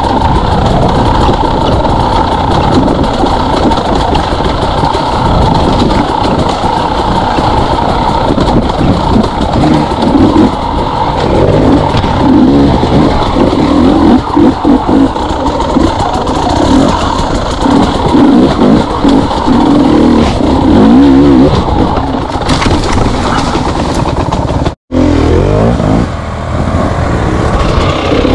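KTM two-stroke dirt bike engine revving up and down as it is ridden, heard close from the rider's camera. The sound cuts out suddenly for a moment about 25 seconds in.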